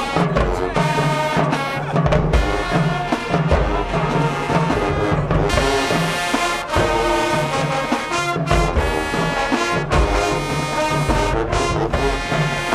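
High school marching band playing: loud brass, trombones and trumpets prominent, over a steady pounding beat of low drums.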